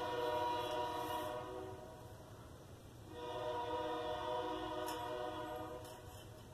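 Train horn sounding two long blasts in a chord of several notes: the first fades out about two seconds in, and the second starts about a second later and holds for roughly three seconds.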